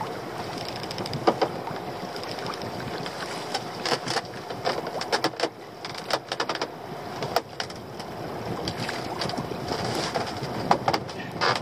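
Sea and wind around a small open boat, with scattered sharp knocks and clicks as a lobster pot's rope is hauled by hand over the gunwale and the pot is brought up alongside.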